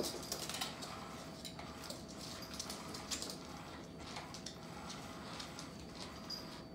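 Irregular light clicks, ticks and scratches from cats pouncing at a motorised under-cover cat toy on a hardwood floor, with a faint steady tone underneath.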